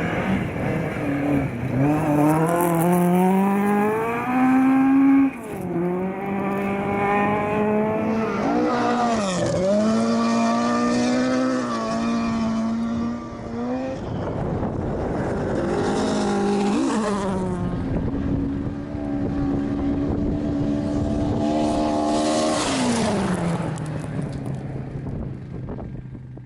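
Ford Escort RS 1800 rally car's four-cylinder engine at full effort on a hillclimb, its note rising and dropping sharply through gear changes. It holds a steady note for a few seconds, then falls away and fades out near the end.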